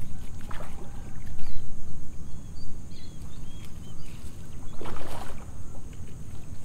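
A hooked rohu splashing in the shallows as it is drawn in to the bank, with the biggest splash about five seconds in, over a steady low rumble.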